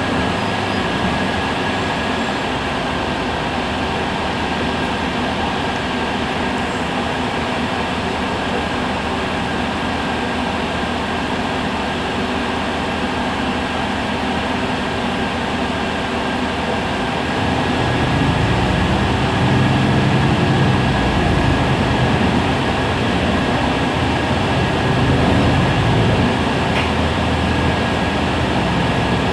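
Heuliez GX 137 city bus running, a steady rumble of engine and road noise with a thin, steady high whine. About two-thirds of the way in the low rumble grows louder for around ten seconds, then eases.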